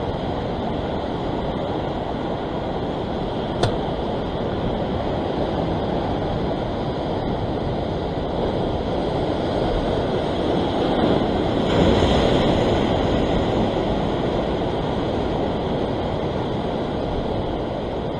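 Sea surf washing over rocks, mixed with wind on the microphone: a steady rush that swells about twelve seconds in. A single short click about three and a half seconds in.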